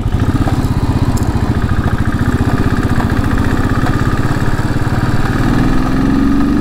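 Royal Enfield Thunderbird 500's single-cylinder engine running with an even pulsing beat as the motorcycle rides onto the highway, rising in pitch near the end as it speeds up.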